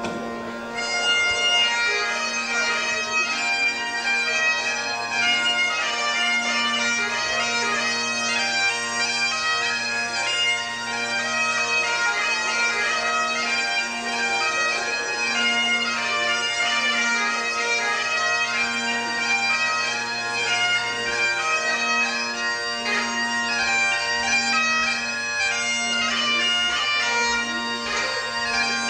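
Great Highland bagpipes playing a tune over steady drones. The pipes strike up at the start, with the chanter melody coming in about a second in.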